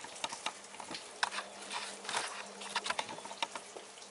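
Rain pattering: a scatter of irregular light taps and drips, over a faint steady low hum.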